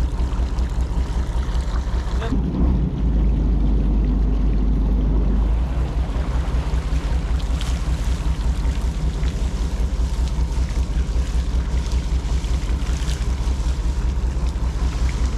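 Fishing boat's engine running with a steady low throb, with water rushing and splashing past the hull. The engine is louder and deeper for a few seconds, from about two to five and a half seconds in.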